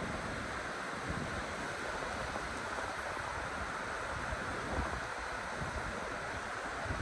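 River water rushing steadily, with wind buffeting the microphone in occasional low thumps.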